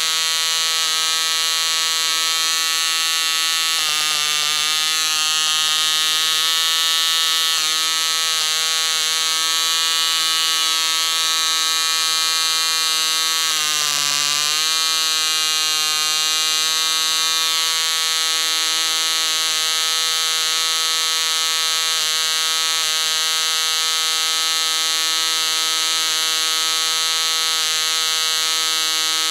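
Russian-made MK-17 model diesel (compression-ignition) engine running flat out on a test stand at about 9,700 rpm, a steady even-pitched buzz. Its pitch sags briefly about four seconds in, then dips deeper and recovers around fourteen seconds in as the compression adjuster on top of the cylinder is turned.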